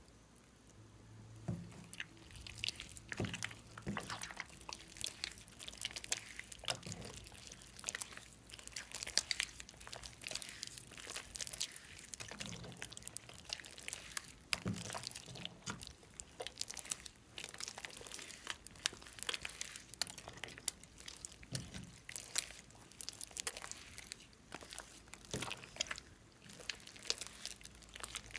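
Slime being worked by hand, with dense, irregular sticky crackles and small pops and a few soft squishes.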